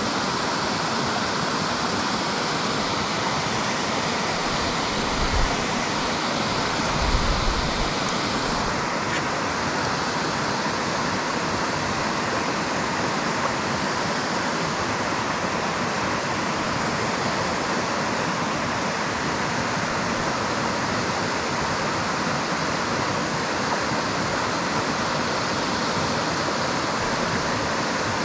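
Steady rush of flowing river water. Two brief low thumps come about five and seven seconds in.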